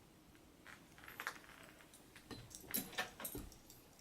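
Faint clicks and light metallic rattles from a small metal multi-tool being handled, a few scattered through the middle.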